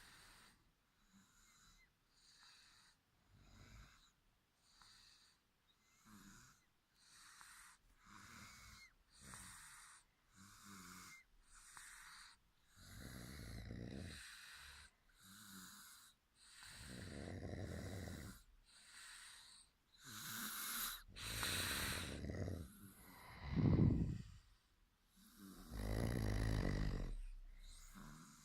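Sleepers snoring: short, airy breaths about once a second, then from about halfway through slower, louder, deeper snores, the loudest a little before the end.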